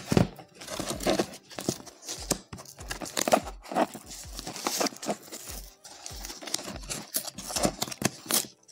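Paper gift wrapping and its tape being peeled and torn off a small box, crinkling and tearing in many short, sharp rustles.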